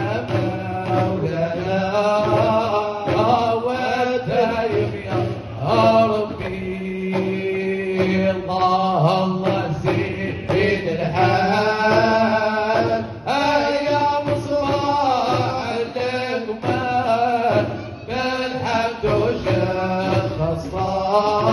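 Male voices of a Hamadcha Sufi ensemble chanting together in a continuous devotional chant, with instrumental accompaniment.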